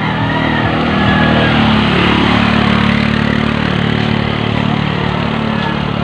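Small motor scooter engine running close by as the scooter passes, a steady engine hum that grows louder about a second in and then holds.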